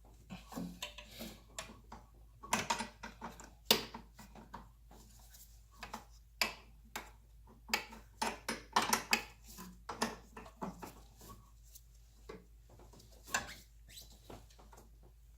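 Irregular metal clinks, taps and scrapes of a wrench and fittings being handled during a fuel filter fitting, with busier clusters a few seconds in and again about halfway through.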